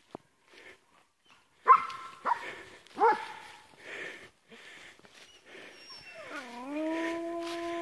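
Hunting dog barking three times in quick succession, then a long drawn-out howl that starts about six seconds in and holds a steady pitch.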